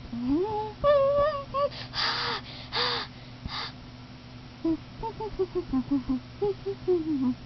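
A child's voice making wordless sounds: a rising call and a high, squawk-like cry, then a few breathy hisses, then humming a bouncy tune in short notes.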